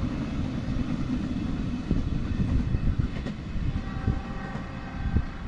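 Kereta Api Indonesia passenger train running away along the track, a low rumble that slowly fades as it recedes.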